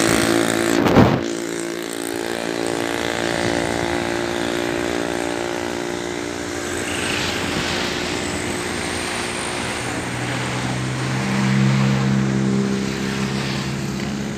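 Motor vehicle engines passing: one engine's hum fades out at the start, a sharp knock comes about a second in, and another engine swells and fades again from about ten seconds in, over a steady traffic noise.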